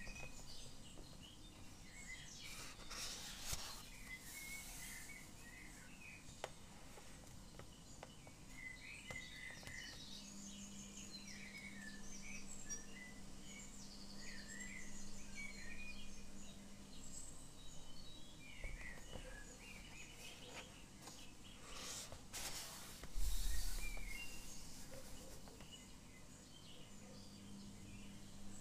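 Small songbirds chirping and twittering over and over, with a faint steady hum beneath. Two brief rustles of handled sketchbook paper, the louder about three-quarters of the way through.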